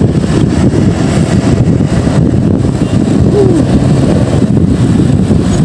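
Loud, rough low rumble of road traffic mixed with wind buffeting the microphone while riding along a city street, with a brief falling tone about three and a half seconds in.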